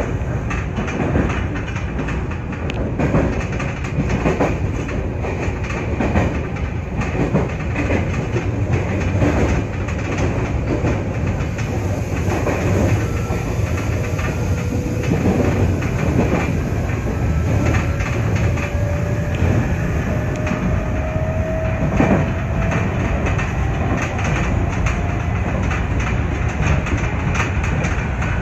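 Nankai 8300 series electric train running along the line, wheels clacking over rail joints. Through the middle, a thin motor whine rises slowly in pitch as the train gathers speed.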